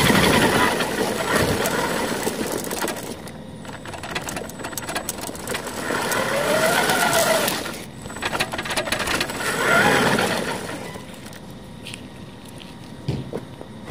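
Small electric motor and gearing of a motorized Tonka toy tow truck whining as it drives, its pitch rising and falling as it speeds up and slows, with the loudness swelling and dropping several times.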